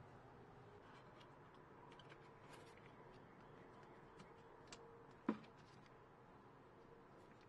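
Near silence, with faint scattered ticks of gloved hands handling the hedge trimmer's engine parts and one sharp click a little past five seconds in.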